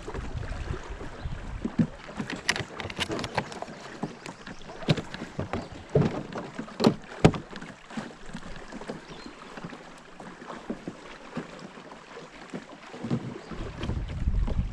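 Water and wind noise around a small boat on a river, with wind buffeting the microphone near the start and again near the end. Scattered light knocks and taps, as of gear handled in the boat, from about two to seven seconds in.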